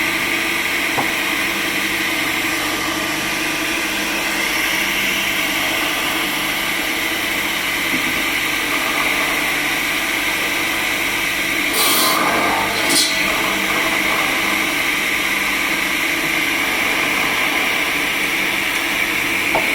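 Sawmill machinery running steadily with a constant whine, typical of log-sawing equipment. About twelve seconds in come two short, loud, hissing bursts, a second apart.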